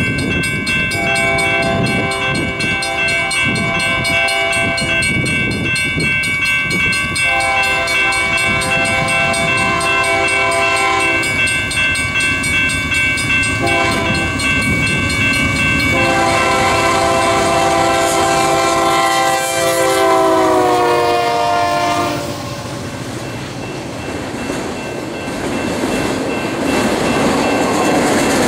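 Lead GE C44AC diesel locomotive's air horn sounding a crossing signal as it approaches: two long blasts, a short one and a final long one, whose chord drops in pitch as the locomotive passes about 20 seconds in. After that the train rolls by, and wheel and rail noise from the passing autorack cars grows near the end.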